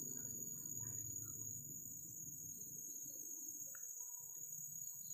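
Forest insects droning steadily at a high pitch, two unbroken high tones, over a faint low background hum, with a few faint short sounds from further off.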